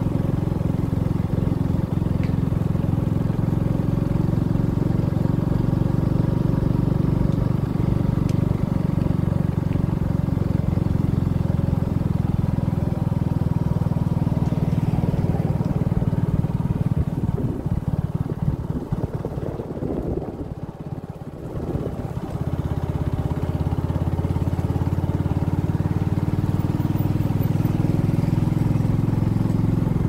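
A motor vehicle's engine running steadily while travelling. It eases off briefly about two-thirds of the way through, then picks up again.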